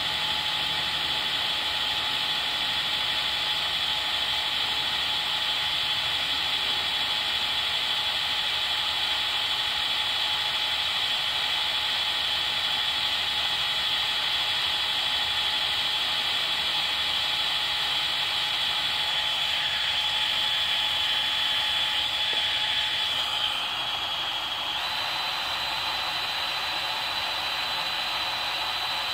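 Cordless drill running steadily with a high whine as its bit bores into a metal flat bar. About three-quarters of the way through, the pitch of the whine shifts.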